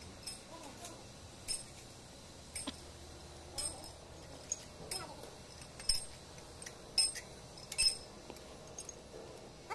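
Steel pushrods and other metal engine parts clinking as they are handled and set into a diesel cylinder head: about a dozen sharp, irregular metallic clinks, the loudest around the middle.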